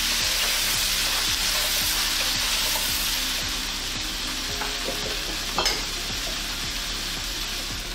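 Potato, carrot and pea pieces sizzling in ghee in a nonstick frying pan, with a wooden spoon stirring through them at the start. The frying hiss eases off slowly on medium heat, and there is a single sharp click about five and a half seconds in.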